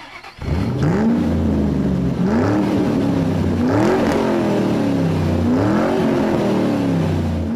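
Car engine revving, the pitch climbing and falling back about four times over a steady low idle rumble.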